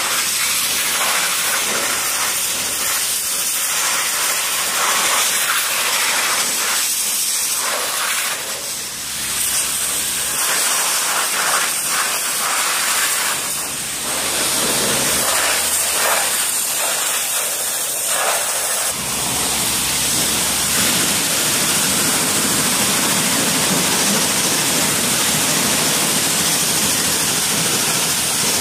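Pressure washer jet spraying water onto a gas RC truck's chassis and body shell: a loud, steady hiss of spray. The splashing shifts as the jet moves and sounds fuller from about two-thirds of the way through.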